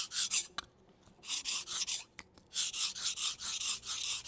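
Steel kitchen knife blade sharpened on a wet whetstone: quick back-and-forth scraping strokes, about five a second, in three runs broken by short pauses.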